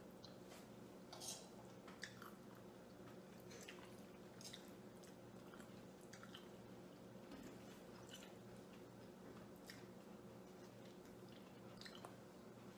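Faint eating sounds of two people having goulash: quiet chewing and a few soft clicks of forks on plates, the clearest about a second in, at two seconds and near the end, over a steady low hum.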